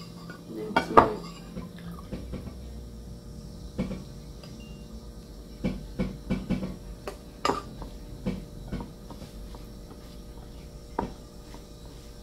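Metal spoons clinking and scraping against ceramic bowls in scattered knocks, the loudest about a second in.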